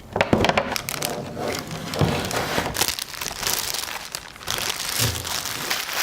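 Packaging crinkling and crackling as a boxed collectible figure is unboxed, with sharp clicks and rustles throughout.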